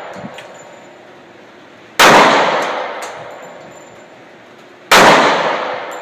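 Two handgun shots about three seconds apart. Each is a sharp crack followed by a long echoing decay inside the indoor shooting range. The echo of a shot fired just before is still dying away at the start.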